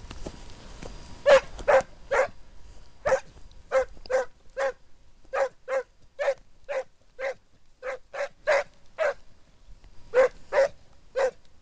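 Black-and-tan scent hound barking: a run of about nineteen short barks, roughly two a second in bunches with brief pauses. It is giving tongue as it works a hare's scent.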